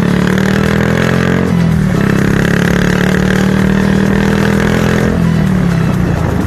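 Motorcycle engine running loud through a KKD slash-cut aftermarket muffler tuned for a deep, loud tone. The note holds steady, dips briefly about one and a half seconds in, then falls away near the end.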